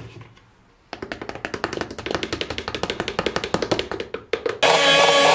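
Fast, even tapping of a utensil in a bowl of cake batter as flour is added, at about ten taps a second. Near the end, a loud, steady whirring starts suddenly, typical of an electric mixer switched on.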